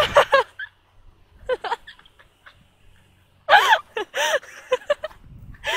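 A young girl's high-pitched excited squeals and giggles in short bursts, the loudest cluster coming a little after the middle following a brief lull.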